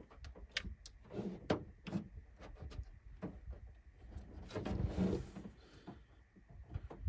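Tools and parts being handled during hands-on work: scattered clicks and knocks, with a longer rustling scrape about four and a half seconds in.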